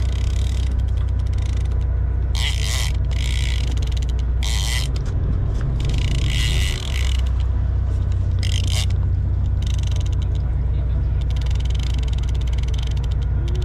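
A heavy big-game conventional reel being cranked hard during a shark fight, its gears and handle working against the load. Short bursts of higher-pitched mechanical noise come every second or two over a steady low rumble.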